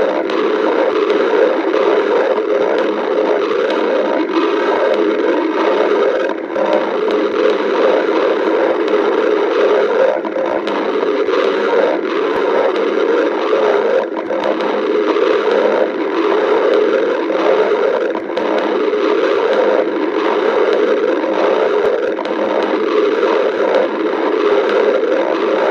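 Human stomach growling: a long, continuous rough rumble that dips briefly a few times.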